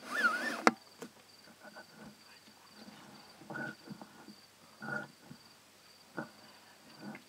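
A black rhino gives a loud, short squeal that wavers up and down in pitch near the start, over a steady pulsing cricket trill. A few shorter, softer sounds follow later.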